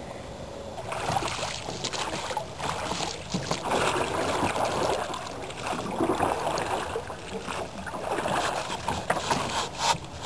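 Oars of a canoe fitted with rowing outriggers pulling through the water, a wash of splashing and swishing that swells with each stroke about every two seconds, after a quieter first second.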